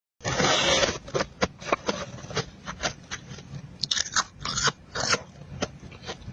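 Powdery freezer-frost ice bitten close to the microphone, then chewed with many sharp, irregular crunches.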